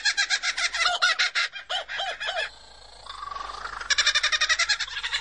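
Laughing kookaburra call: a fast run of rapid chuckling notes that breaks off about two and a half seconds in. After a short, quieter pause, the same rapid kookaburra laughter starts again, this time from a superb lyrebird mimicking it.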